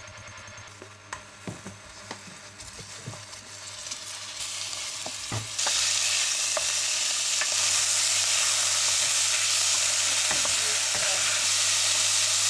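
Cubes of beef searing in hot oil in a stainless steel pot, stirred with a wooden spoon. Quieter at first with a few sharp knocks, then the sizzle builds and, about five and a half seconds in, becomes a loud, steady hiss.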